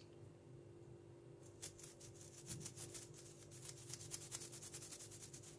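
Toothbrush bristles scrubbing a plastic dishwasher filter crusted with limescale: faint, quick, repeated brushing strokes that begin about a second in.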